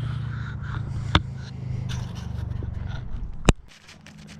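A steady low engine hum cuts off about three seconds in. There is a sharp click about a second in, and a louder knock just after the hum stops.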